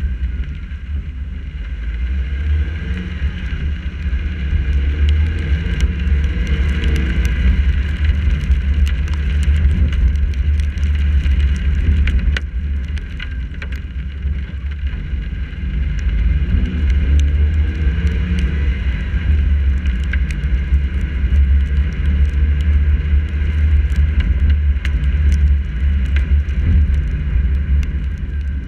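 A car driving on rain-wet streets, heard through a GoPro mounted on its hood: a heavy low rumble of wind buffeting and road noise on the camera, with scattered ticks of raindrops hitting the housing. It grows louder and softer in stretches.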